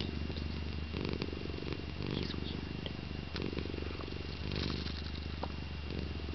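Domestic cat snoring in its sleep, a low snore swelling and fading with each breath about once a second.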